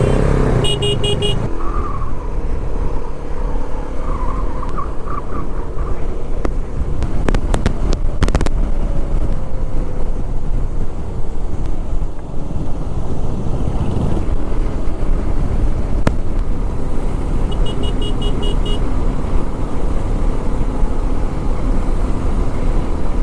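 Motorcycle on the move on a road: engine running steadily under a constant rush of riding noise. Twice, a short run of rapid high beeps.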